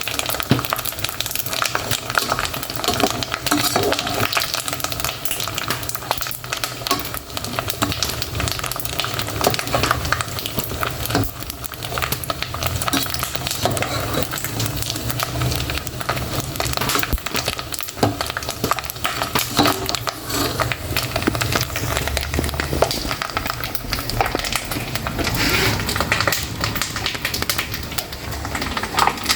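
Pork rinds (torresmo pururuca) frying in hot oil: a continuous sizzle thick with crackles and pops.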